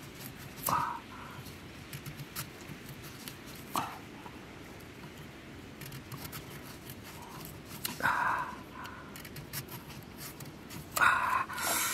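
Kitchen knife cutting slices off a raw carrot: a short crunch with each cut, four cuts a few seconds apart, with small clicks between them.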